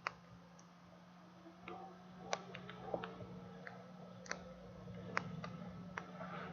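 Faint computer mouse clicks, about nine scattered irregularly, over a low steady hum.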